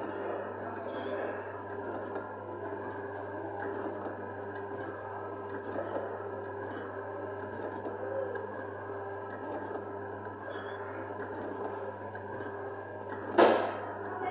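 Thomas the Tank Engine coin-operated kiddie ride running after being started, giving a steady low hum with a constant tone and light mechanical rattling and ticks. One loud, sharp knock about thirteen seconds in.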